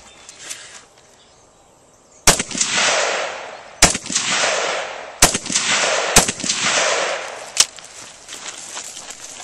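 Five single shots from a Rock River Arms AR-15 rifle, spaced about one to one and a half seconds apart. Each is followed by a long echo.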